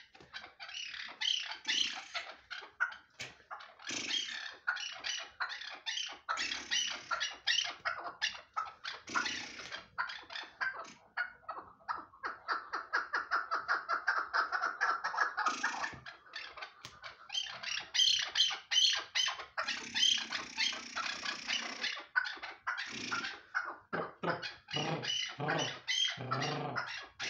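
Chukar partridge calling: a long run of short, rapidly repeated clucking notes that quicken into a dense chatter for a few seconds in the middle.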